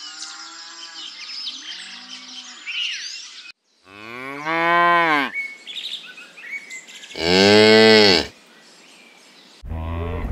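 Small birds chirping, then two long, loud cow moos, each rising and falling in pitch. Near the end a hippo's low, buzzing grunt begins.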